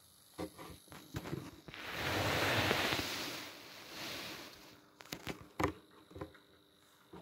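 Handling noise as the camera is picked up and moved: a rustling hiss lasting about three seconds in the middle, with scattered clicks and knocks before and after it.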